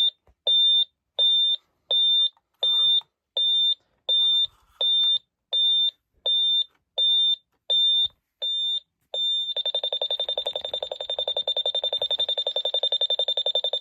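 Ademco LYNX-R alarm keypad sounding its exit-delay warning after being armed away: a high beep repeating evenly, a little under twice a second, which about two-thirds of the way through switches to a rapid, buzzy beeping as the exit delay runs out.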